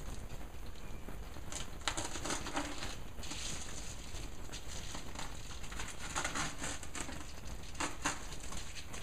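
Radiant-barrier foil bubble wrap crinkling in irregular bursts as it is handled and pressed into place.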